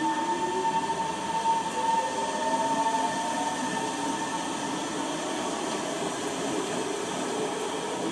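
Singapore MRT electric train pulling out of an underground station: its traction motors whine, rising in pitch as it picks up speed, over the rumble of the moving cars. A steady high tone fades out about three seconds in.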